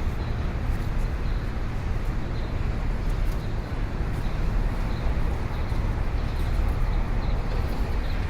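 Busy city street ambience: a steady low rumble of traffic with a general hum of people around.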